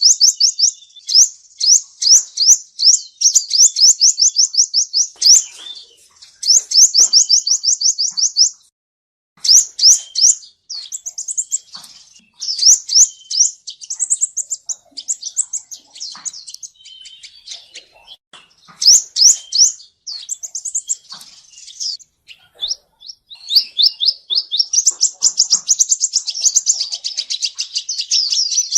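Male sunbird singing: fast high-pitched trills of quick sloping notes, several a second, in bursts of one to three seconds separated by short pauses, with a longer pause about nine seconds in.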